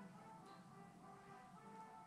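Faint music: held notes at several pitches shifting in a slow melody.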